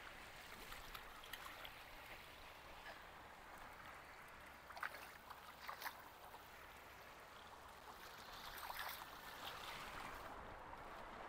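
Faint sea water washing and trickling against jetty rocks, with a couple of brief sharper sounds about five and six seconds in.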